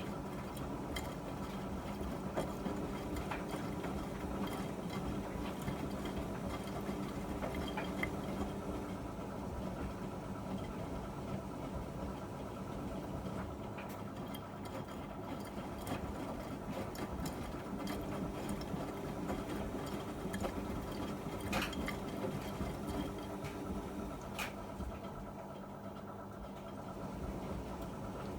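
Miele MedicWash W2585 washing machine running a wash cycle, its drum motor humming for about nine seconds, pausing, then humming again for several seconds, with scattered clicks and knocks from the drum.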